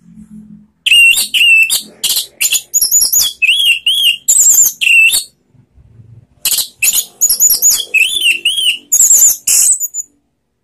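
Orange-headed thrush singing loud, rapid runs of high whistled and warbled notes, in two bursts of about four seconds each with a short pause between, stopping abruptly near the end.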